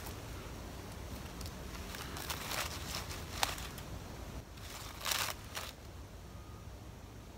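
A few short rustling, crackling noises: a cluster about two to three and a half seconds in, ending in a sharp click, and another pair about five seconds in, over a faint low background rumble.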